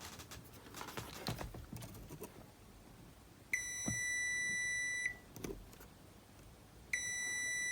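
Multimeter continuity buzzer giving two steady high beeps, the first about a second and a half long and the second about a second, as the probes show the cassette player's mode switch conducting. Faint clicks of the probes come in between.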